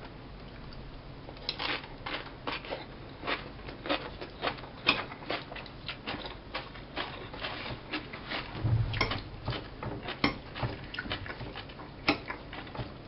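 A steel fork clicking and scraping on a ceramic plate as shredded sauerkraut salad is stirred and picked up, mixed with close chewing of the crunchy cabbage. It makes a run of small, irregular clicks and crunches, several a second.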